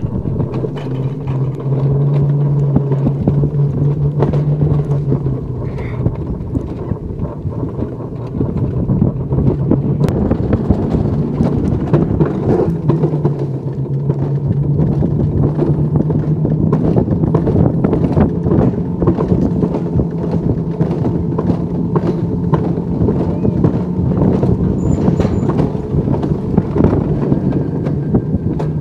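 Mountain coaster (Rodelbahn) sled running along its metal rail track: a steady rolling rumble and low hum from the wheels, with many small rattling clicks.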